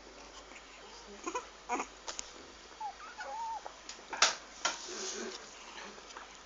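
Short, thin whimpers from an English bulldog puppy around the middle, among scattered knocks and scuffles, the loudest two knocks a little after the whimpers.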